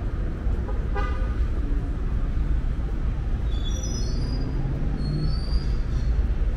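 City street traffic rumbling steadily, with a short horn toot about a second in and thin, high squealing tones around the middle.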